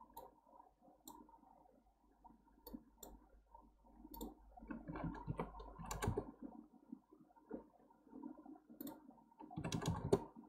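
Faint computer mouse clicks, scattered a second or more apart, as values are set in software. A couple of soft, low stretches of noise come around the middle and near the end.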